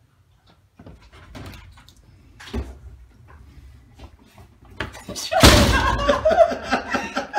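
A door being opened with faint clicks and knocks, then a loud bang about five seconds in as it shuts, followed by a person's voice.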